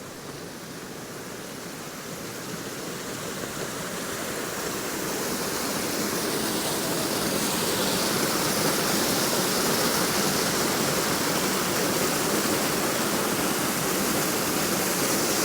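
Small waterfall on a stream swollen by heavy rain: steady rushing of falling water that grows louder over the first eight seconds or so, then holds.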